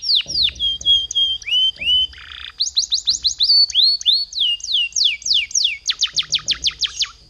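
Domestic canary singing: a continuous song of rapid trills made of quickly falling whistled notes, switching phrase every second or so, with a short harsh buzzy note about two seconds in. A fast trill near the end stops abruptly.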